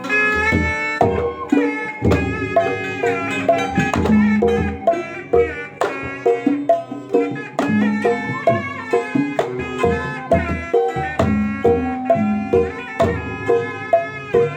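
Traditional music: hand drums beating a busy, steady rhythm under a bending melody line.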